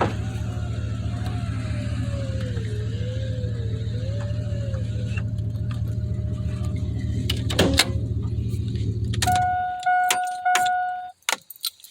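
2002 Chevrolet Avalanche Z71's V8 idling steadily, then shut off about nine seconds in, after a few clicks. Right after shutdown, the truck's electronic warning chime dings repeatedly for about two seconds, followed by a few clicks.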